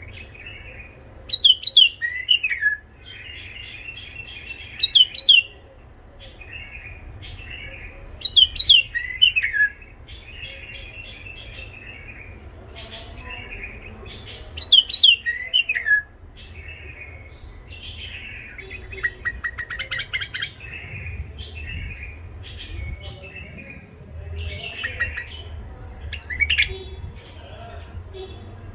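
White-eared bulbul singing: four loud, short phrases of clear falling whistles in the first sixteen seconds, with soft chattering between them, then quieter varied twittering with a quick run of clicking notes about twenty seconds in.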